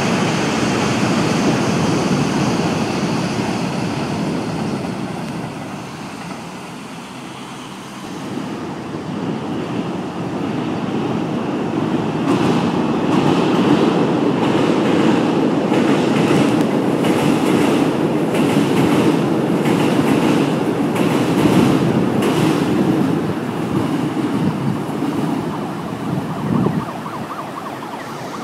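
Trains crossing a steel railway bridge. A Line 1 electric commuter train's rumble fades over the first few seconds. Then a Korail Saemaeul diesel-hydraulic train passes, its wheels clacking over the rail joints about once a second.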